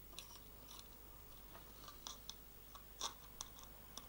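Faint, scattered small clicks and ticks as a hex driver turns a 3 mm screw and the small metal and plastic parts of an RC car's shock mount are handled. The sharpest click comes about three seconds in.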